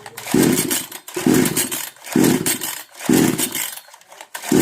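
Kisan Kraft 58 cc two-stroke chainsaw being pull-started with the choke on: four recoil-starter pulls about a second apart, each a short cranking whirr, and the engine does not catch. The saw has a starting problem that a new carburettor has not cured.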